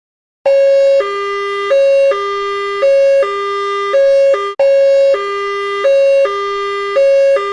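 Two-tone emergency-vehicle siren sounding a hi-lo pattern: a short high note and a slightly longer low note alternate about once a second, the high note louder. It starts about half a second in, and near the middle it cuts out for an instant and starts the pattern again.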